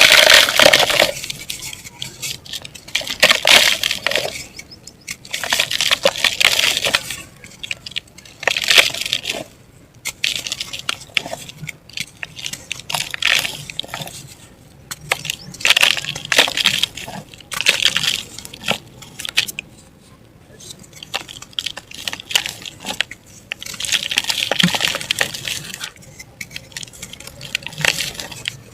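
Dry chunks of mud and dirt crumbling and breaking apart, in gritty, crackling bursts a few seconds apart, with sharp clicks of pieces snapping and falling.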